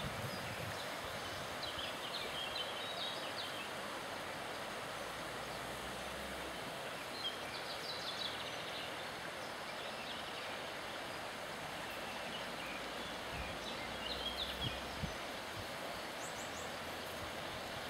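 A river flowing with a steady rushing sound, with short bird chirps a few times over it.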